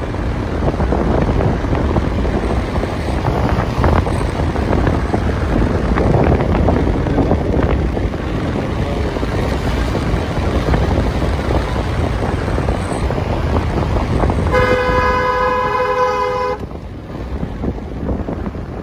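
Steady running and road noise of a vehicle climbing a winding road, then a horn sounds once, held for about two seconds, a few seconds before the end.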